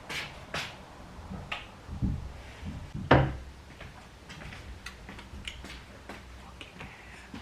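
A series of scattered knocks and clicks, like a door or cupboard, with one sharp knock about three seconds in being the loudest.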